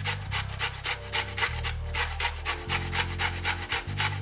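Raw beetroot grated on a stainless steel grater: quick, even rasping strokes, about five a second.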